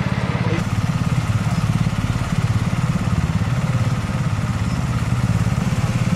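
An emergency vehicle's engine idling with a steady, even low throb.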